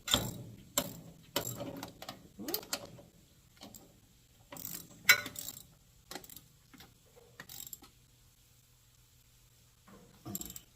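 Hand ratchet wrench clicking as nuts on a power steering pump's mounting studs are tightened: a run of strokes about every half second, then scattered clicks with one loud clack about five seconds in, and one more burst near the end.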